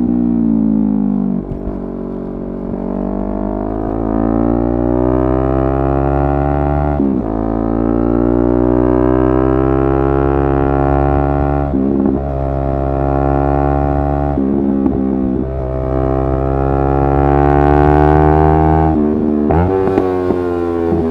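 Yamaha R3's 321 cc parallel-twin engine running under load while riding. Its pitch climbs slowly, then drops and breaks briefly about five times as the rider changes gear.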